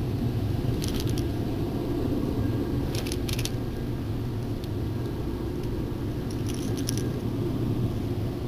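Steady low hum of the boat's motor, with short clusters of light metallic clicks and jingles three times as a snap and a square-bill crankbait's hooks are handled.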